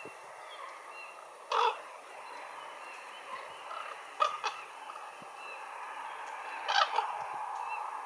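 Ravens calling off-camera: a loud call about a second and a half in, two quick sharp calls around four seconds, and another pair of calls near seven seconds.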